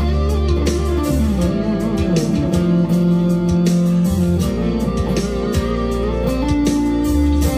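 Monoprice Indio Cali Classic Strat-copy electric guitar played through an amp: a lead line of held notes with string bends, over a steady low bass note that drops out about a second and a half in and returns near the end.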